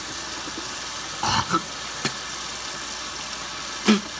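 Kitchen faucet running steadily into a stainless steel sink. A couple of short mouth sounds come from someone bent over it, about a second in and again near the end, as he tries to clear chili powder from his mouth.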